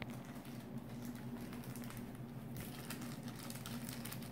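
Faint clicks and soft rustling of a small plastic bag being handled and picked at with the fingers, over a low steady hum.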